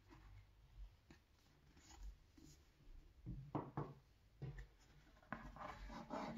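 Books handled and slid across a wooden tabletop: faint rubbing and scraping of covers on wood, with a few short scuffs in the second half and a longer stretch of handling near the end.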